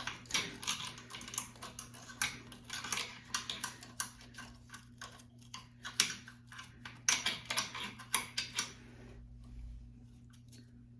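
Lint being cleaned out of a longarm quilting machine's hook and bobbin area: quick irregular clicks and short scratchy strokes over a steady low hum. They thin out after about eight seconds.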